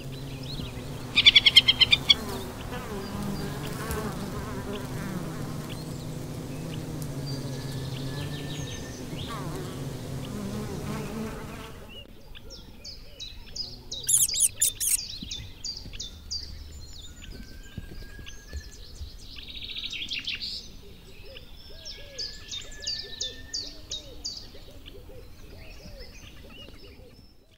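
Insect buzzing in a steady low drone for about the first twelve seconds, with a loud burst of rapid clicking about a second in. Then the buzzing stops and small birds call in quick high ticking trills and thin short whistles.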